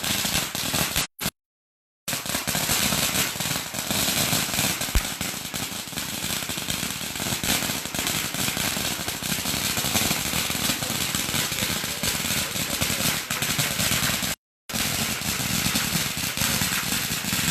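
A 2,000-count string of firecrackers going off in a continuous, rapid crackle of pops. The sound cuts out to dead silence twice, briefly: once about a second in, and again near the end.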